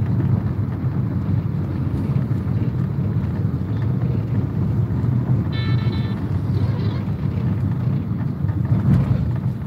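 Steady low road and engine rumble of a car driving, heard from inside the cabin, with a brief high tone a little past halfway through.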